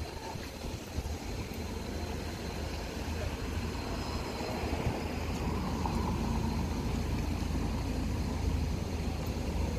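Low, steady vehicle rumble with a noisy haze above it, growing somewhat louder about halfway through.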